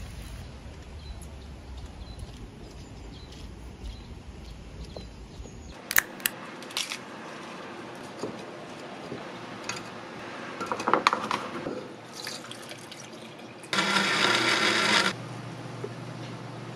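Kitchen preparation sounds: a few sharp clicks, then a clatter of pieces dropping into a container. Near the end a blender runs in one short, loud burst of about a second and a half.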